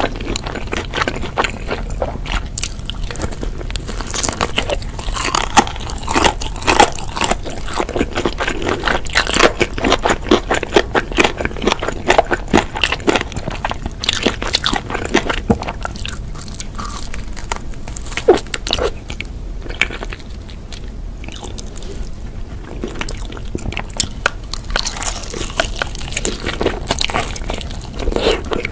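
Close-miked eating of sauce-glazed fried chicken, with the batter crunching and crackling through bite after bite of chewing. It goes quieter for several seconds past the middle, then the crunching starts again near the end with a fresh bite.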